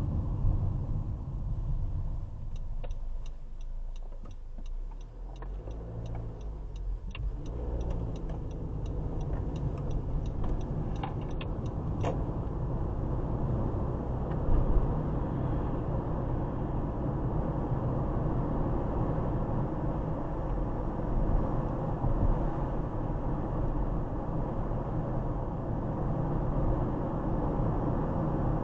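Road and engine noise inside a moving Honda CR-V, a steady low rumble, with a run of quick regular ticks through the first twelve seconds or so.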